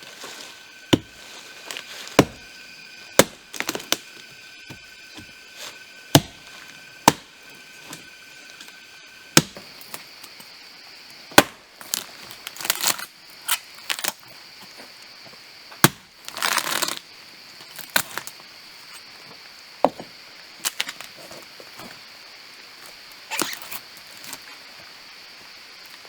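An axe chopping into a rotten tree trunk: sharp, irregular strikes a second or two apart, with cracking of wood and one longer splintering crackle partway through.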